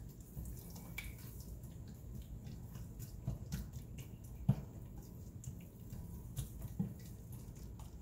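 Chicken pieces frying faintly in a pan while a slotted spatula stirs them, with scattered clicks and knocks of the spatula against the pan, the sharpest about halfway through.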